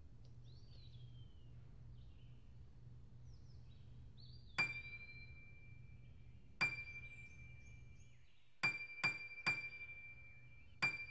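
A single high, bell-like note struck six times, each strike ringing on: two about two seconds apart, then three in quick succession, then one more. Before the first strike there are faint bird chirps over a low hum.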